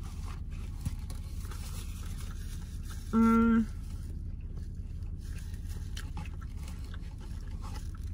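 A woman's short, closed-mouth "mmm" of enjoyment while eating, about three seconds in, over a steady low rumble in the car cabin.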